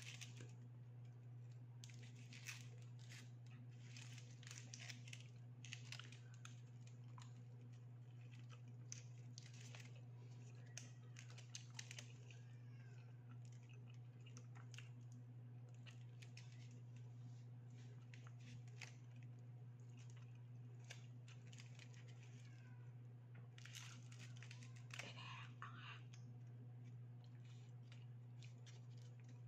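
Quiet chewing and the crinkle of aluminium foil wrapped around a chicken sandwich wrap, heard as scattered short rustles and clicks over a steady low hum.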